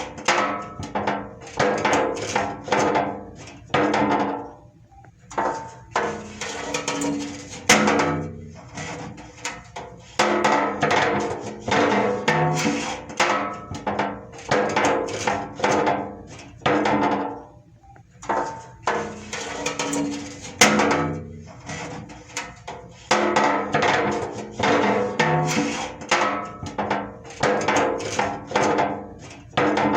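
Metal struck repeatedly, each blow ringing briefly with several tones. The strikes come a few a second in runs of several seconds, with short pauses between runs.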